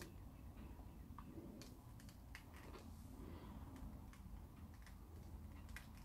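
Near silence: quiet room tone with a few faint, scattered light clicks.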